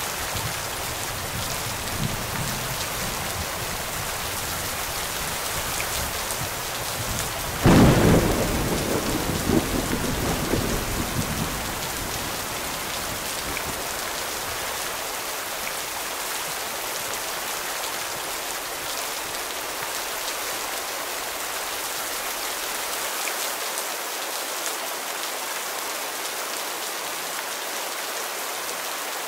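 Steady heavy rain, with a thunderclap about eight seconds in that rolls off into a low rumble over several seconds; a fainter rumble of thunder comes earlier.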